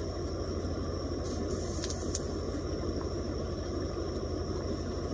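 A steady low engine drone. A few brief high crackles come about one to two seconds in.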